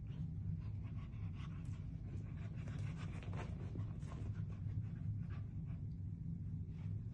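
Dogs playing rough, a corgi puppy and her older brother, panting and scuffling in short rasping bursts, busiest in the middle, over a steady low hum.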